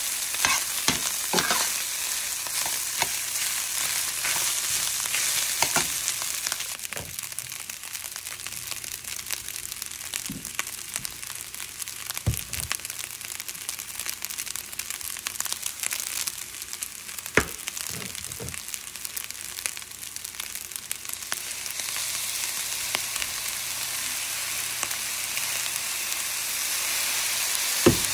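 Fried rice sizzling in a stainless steel pan, with a metal spoon scraping and knocking against the pan as it is stirred. The sizzle eases off in the middle and picks up again near the end.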